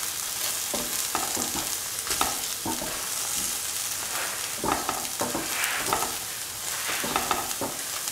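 Chopped okra sizzling in a hot pan while a spatula stirs and scrapes it in irregular strokes, about one or two a second. The okra is being sautéed until its slimy thickness cooks off.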